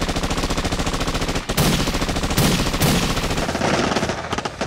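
Machine-gun fire sound effect: a rapid, unbroken string of shots, with a brief break about one and a half seconds in followed by a few louder bangs.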